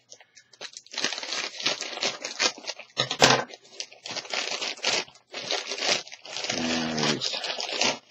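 Clear plastic bag crinkling and rustling as it is opened and plastic model kit sprues are pulled out of it, with a sharp snap about three seconds in.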